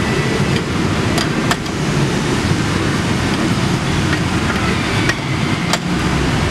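Steady loud background noise of a large warehouse, with a handful of short sharp metallic clicks from a wrench working the nuts on an insulated pipe shoe's bolted sheet-metal clamp.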